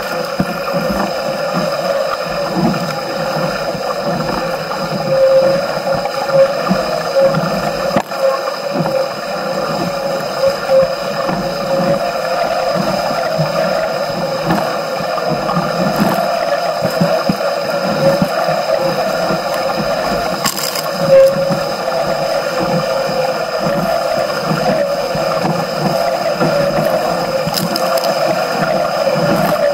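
Water rushing and gurgling along the hull of a Musto Skiff sailing dinghy under way, a steady loud rush with a few brief louder splashes.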